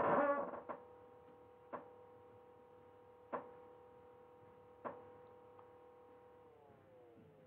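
Faint single clicks at a computer keyboard, five of them spaced irregularly one to one and a half seconds apart, over a faint steady hum whose pitch slides down near the end.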